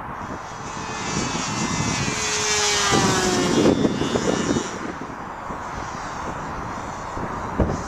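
Radio-controlled model Spitfire flying past, its motor's pitch falling as it goes by, loudest a few seconds in.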